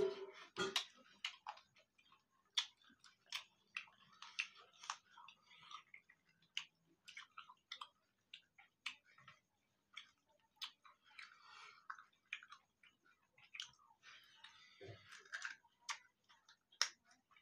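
Faint, irregular eating sounds from people eating chicken curry and rice with their hands: chewing, wet mouth smacks and sharp little clicks, with soft squishing as rice is mixed by hand.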